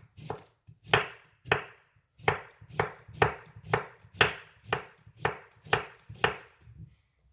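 Knife chopping on a cutting board in a steady rhythm, about two strokes a second, getting fainter near the end.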